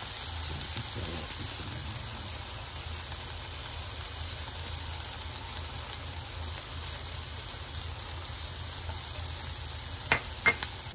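Beef and green peppers sizzling steadily in a frying pan, over a low hum. Two sharp clicks about half a second apart near the end.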